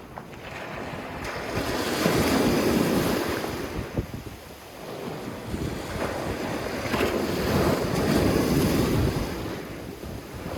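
Sea waves washing in on a sandy beach: two slow surges that build and recede, with wind rumbling on the microphone.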